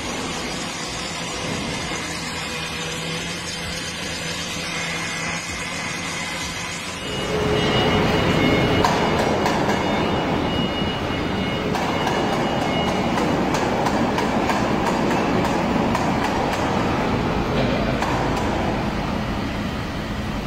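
Factory welding machinery running: a steady mechanical noise that gets louder about seven seconds in, with scattered clicks and a faint high whine.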